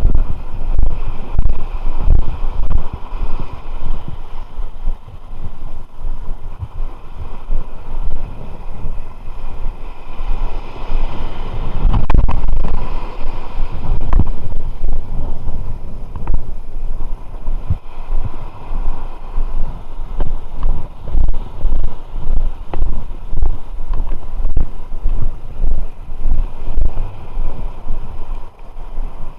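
Wind buffeting the microphone in uneven, low rumbling gusts.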